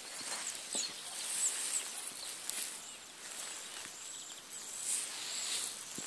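Footsteps crunching on gravel as someone walks with the camera, with a few short, high bird chirps about a second in.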